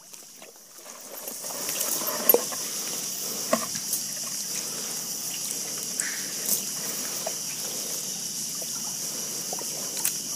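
Wet shrimp cast net being worked in soft mud: water trickling and dripping from the mesh, with scattered small wet splats and squelches over a steady high hiss. It starts about a second and a half in.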